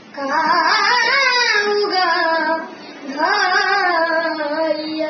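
A boy singing alone, two long held phrases that bend and waver in pitch, with a short break between them near the middle.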